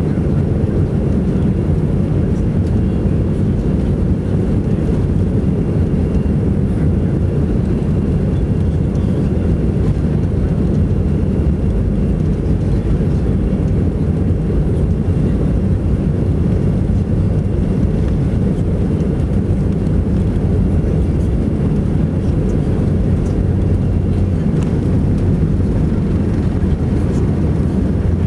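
Steady cabin noise of an Airbus A319-115, the drone of its CFM56 engines and the rush of air along the fuselage heard from a window seat, heavy in the low range and unchanging.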